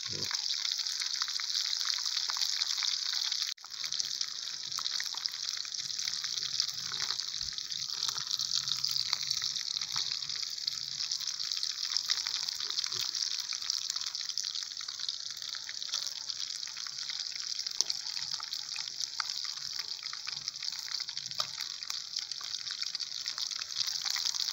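Pieces of traíra fish deep-frying in hot oil in a pan over a wood fire: steady sizzling with many crackling pops. The oil is still crackling, a sign the fish is not yet done. A brief drop-out about three and a half seconds in.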